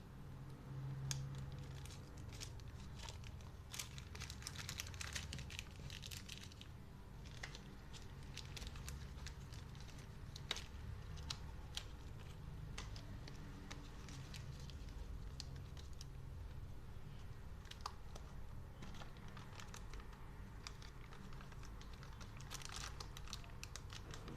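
Packaging being handled: irregular crinkling and rustling with scattered small clicks and taps, as accessories are unwrapped.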